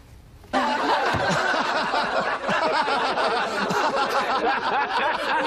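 Many voices laughing and shrieking together, cutting in suddenly about half a second in and carrying on loudly.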